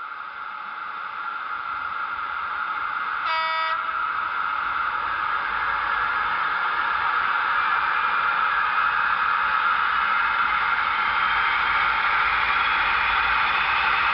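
OO gauge model diesel locomotive and MGR hopper wagons running on the track, a steady buzzing hum that grows steadily louder as the train approaches. About three seconds in there is one short horn toot.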